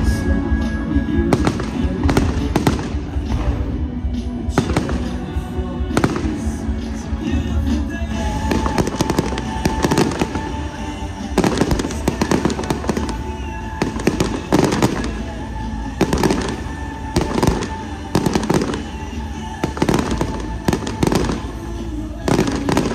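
Fireworks going off in quick irregular bangs, at times several a second, with music playing throughout.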